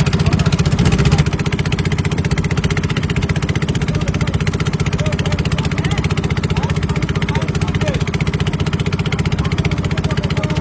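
A small engine running steadily with a rapid, even beat, dropping slightly in loudness about a second in.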